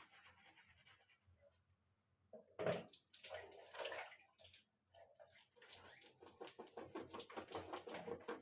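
Wet hair being washed: faint splashing and squelching of water and shampoo lather as hands scrub through the hair, starting about two and a half seconds in after a short lull.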